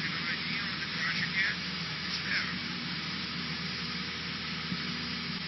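Steady drone of a Cessna 152's Lycoming O-235 four-cylinder engine and propeller in flight, with an even hiss of rushing air over it.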